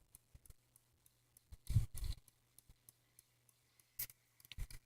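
Faint steady low hum of a Hampton Bay ceiling fan's motor running on high, with a few scattered clicks and knocks around two and four seconds in.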